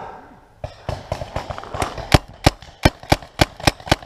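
Paintball marker firing a rapid string of about eight sharp pops, roughly three a second, starting a little before halfway through.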